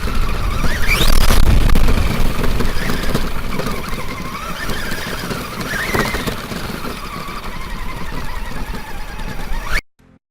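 Arrma Granite 4x4 RC truck's brushless motor whining, its pitch rising and falling as the truck speeds up and slows down, over a rough rumbling noise. The sound cuts off suddenly near the end.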